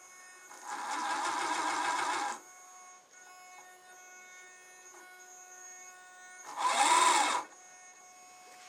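Small battery-powered DC motor, driven by a Gertboard's motor controller, whirring in two short runs. The first starts about a second in and lasts nearly two seconds; the second, near the end, is shorter and louder, and its pitch rises and then falls as the motor speeds up and slows down.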